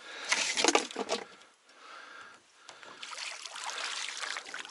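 Water splashing and sloshing around a small boat, with a few louder splashes in the first second, then a steadier wash of water.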